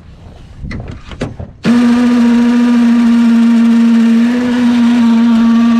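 Handheld electric power tool's motor spinning up sharply about a second and a half in, then running at a steady high speed with an even whine.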